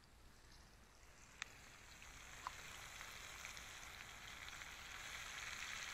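Pieces of boga fish frying in oil in a pan over wood embers. Near silence at first; then, after a sharp click about a second and a half in, a sizzling hiss builds, with a few sharp pops.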